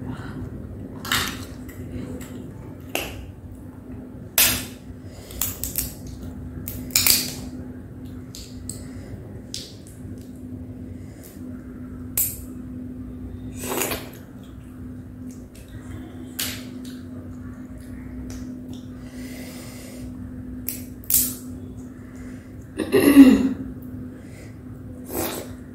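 Crab and prawn shells cracking and snapping as they are peeled and broken apart by hand: separate sharp cracks every second or two, over a steady low hum. One louder, longer noise near the end.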